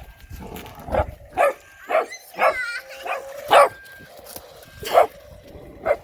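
Rottweiler puppy barking about seven times in short, sharp barks, with a wavering whine between the early barks.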